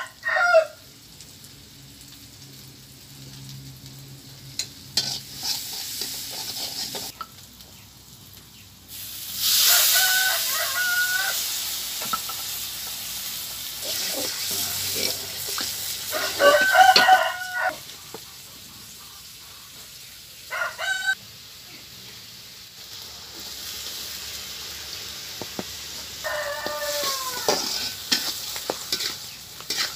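Food frying and sizzling in a wok over a wood fire while it is stirred and scraped with a metal spatula. The sizzle jumps loud about a third of the way in as more ingredients hit the hot oil, then settles to a steady hiss. A rooster crows four times over it.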